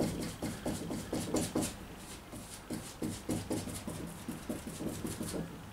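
Stiff, short-cut bristle brush working epoxy resin in on a fibreglass boat: a quick run of short scrubbing strokes, a few a second, growing fainter toward the end.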